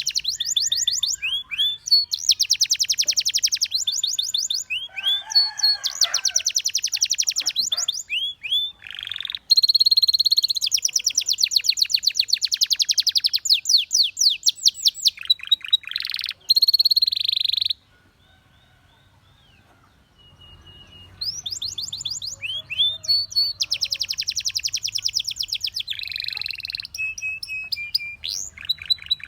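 A canary singing: long runs of rapid repeated trilled notes alternating with short whistles, broken by a pause of about two seconds about two-thirds of the way through.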